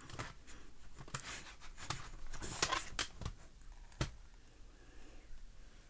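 Plastic CD jewel cases being handled and picked up: scattered sharp clicks and knocks over light rustling, most of them in the first four seconds.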